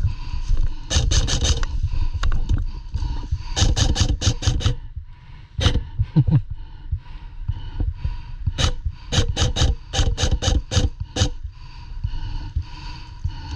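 Airsoft guns firing in quick volleys of sharp cracks: a cluster about a second in, another around four seconds, single shots, then a longer run of about eight near the end. A steady low rumble runs underneath.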